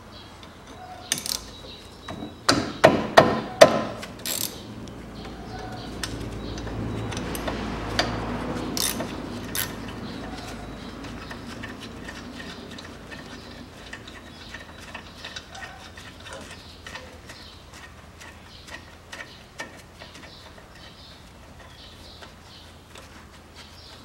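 Ratchet wrench clicking and metal knocking at a Toyota Passo's front brake caliper as its bolts are undone, with a cluster of loud metallic knocks about three seconds in and scattered clicks after. A low rumble swells and fades around the middle.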